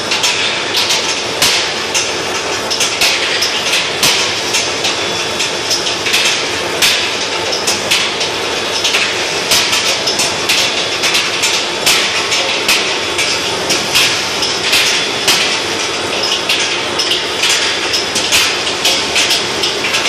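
Steel-ball skew rolling mill running as a red-hot steel bar feeds through its rolls: a steady loud machine noise with frequent, irregular sharp metallic clanks and rattles.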